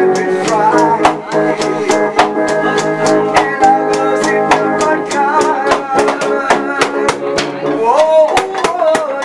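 Live amplified music: a man singing through a handheld microphone over an electric guitar, with a steady drum beat underneath. The vocal line is most prominent near the end.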